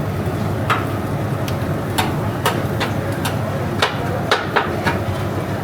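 A steady low rumble with about ten sharp, irregular clicks or taps over it, coming more often in the second half.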